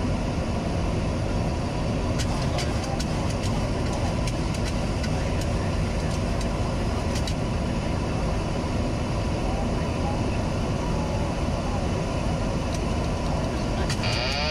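Steady flight-deck noise of a Boeing 737-800 on final approach: rushing air and engine hum, with a few faint clicks a few seconds in. Near the end the autopilot disconnect warning starts, a warbling wail.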